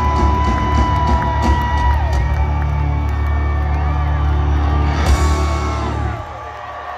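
Rock band playing live at full volume, a heavy sustained bass note and ringing guitar chord held under a long high note, with a crash about five seconds in. The band cuts off about six seconds in, leaving the crowd cheering and whooping.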